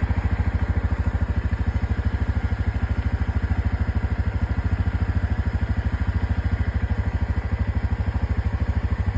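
ATV (four-wheeler) engine idling with a steady, even chug of about ten pulses a second.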